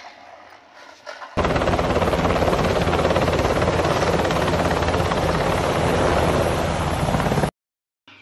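Helicopter sound effect laid over the picture: loud, steady helicopter noise that starts abruptly about a second and a half in and cuts off sharply near the end.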